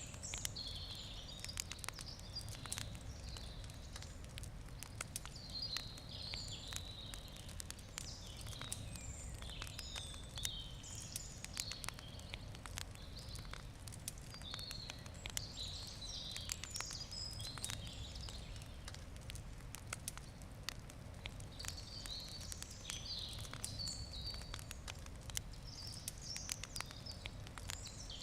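Wood campfire crackling, with frequent sharp pops and snaps over a low steady rumble. Birds chirp in short phrases throughout.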